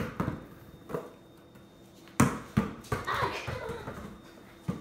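Basketball dribbled on a hard floor: a handful of bounces at uneven spacing, the loudest about two seconds in.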